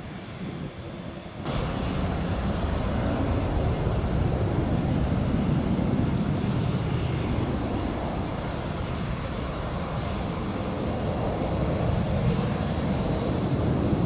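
Boeing 737-800 airliner's CFM56 turbofan engines running as it moves along the ground: a steady jet rumble with a thin, steady high whine over it. It comes in abruptly about one and a half seconds in; before that, a quieter jet runs.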